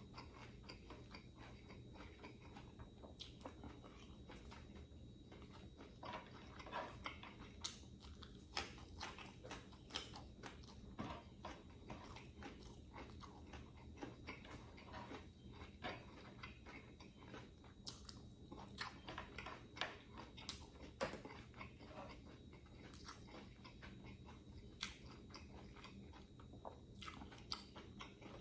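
Close-miked eating: a person biting and chewing, with irregular crunches and wet mouth clicks.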